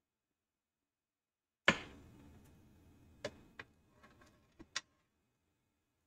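A sharp knock, then a few lighter clicks and taps spread over the next three seconds: tools and parts being handled and set down on a repair bench.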